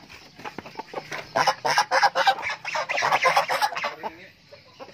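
A flock of chickens in a pen clucking and squawking, a dense run of short harsh calls that thins out near the end.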